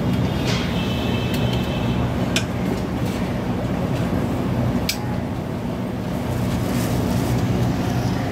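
Steady street traffic noise with a low engine hum, broken by a few sharp clinks of a serving spoon against a steel pot and plates.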